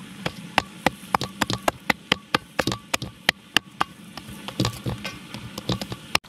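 Floured hand slapping and patting a soft dough ball in a metal basin: a quick, irregular run of wet slaps, several a second, that cuts off near the end.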